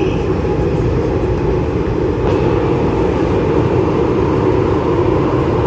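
Steady rumble of a Hong Kong MTR metro train running, heard from inside the carriage.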